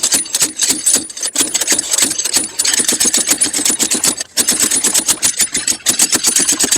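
Impact wrench hammering rapidly on a hub puller's forcing screw, rattling almost without a break except for two short pauses, as it works to pull a badly rusted, seized front wheel hub off the knuckle.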